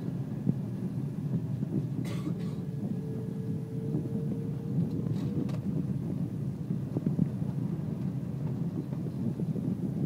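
Steady low rumble of engine and airflow noise inside an airliner cabin on the approach, with a faint hum partway through and two brief hisses about three seconds apart.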